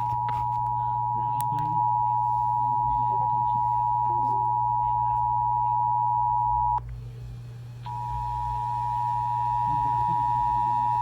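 Emergency alert attention tone: a loud, steady electronic tone near 1 kHz. It drops out for about a second near the middle, then resumes, marking the start of a new warning broadcast.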